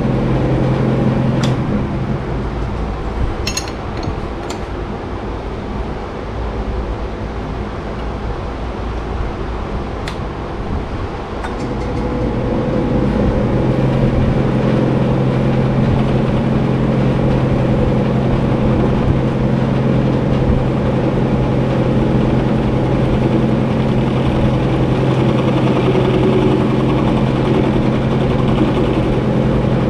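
Atlas metal lathe running with a copper hammer head spinning in its chuck as it is turned, a steady mechanical hum. A few light clicks come in the first half; the hum drops for several seconds, then comes back louder and steadier about twelve seconds in.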